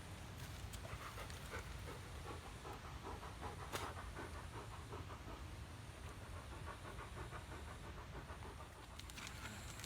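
A dog panting rapidly in a fast, even rhythm, starting about a second in and stopping near the end, over a steady low rumble.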